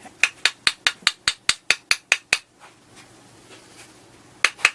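Light tapping: a quick run of about a dozen sharp taps, about five a second, then a pause and three more taps near the end.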